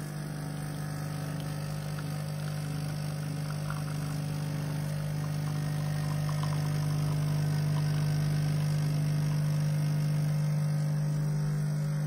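De'Longhi BCO260 espresso machine's pump humming steadily while espresso pours into the cup. The hum grows slightly louder as the shot runs.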